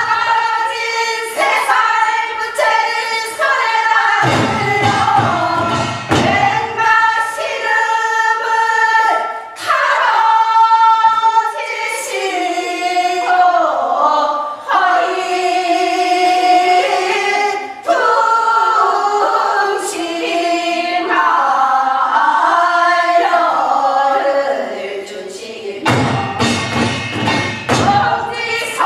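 A group of voices singing Gyeonggi hwimori japga, Korean folk song, together, with held and bending notes. Low thuds come in under the singing about four seconds in and again near the end.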